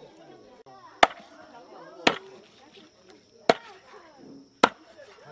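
Meat cleaver chopping through a goose carcass on a round wooden chopping board: four heavy single chops roughly a second apart, with faint voices behind.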